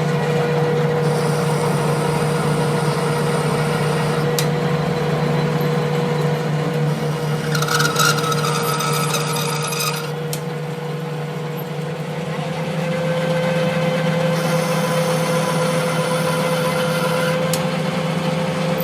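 A machine running with a steady hum, joined by stretches of high rasping or scraping, as of metal being worked, about a second in, from about seven to ten seconds in, and again near the end.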